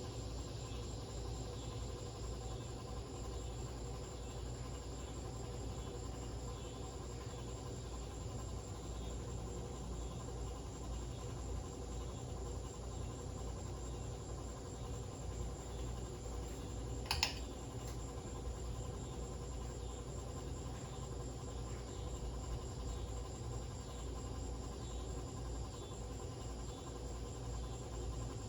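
Harbor Breeze Lakeside II ceiling fan running with a steady low hum and a constant thin high-pitched tone; its bad capacitor leaves it running slowly on every speed. A single sharp click about seventeen seconds in.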